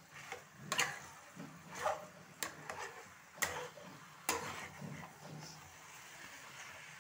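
Spatula scraping and knocking against a kadhai as potatoes, spinach and aubergine are stir-fried: about five sharp scrapes in the first four and a half seconds, then only a faint steady background.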